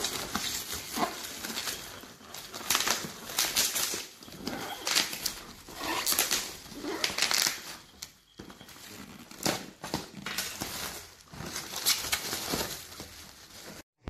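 Crinkling and rustling of plastic wrapping and a cardboard box being handled and opened, in irregular bursts.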